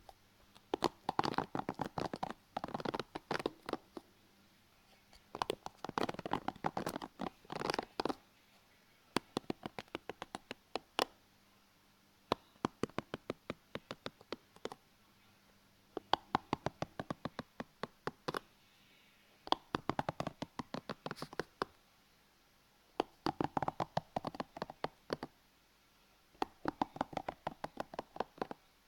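Close-miked ASMR handling sounds: bursts of quick, crisp clicks and scratchy rustles, a few seconds each, with short pauses between them.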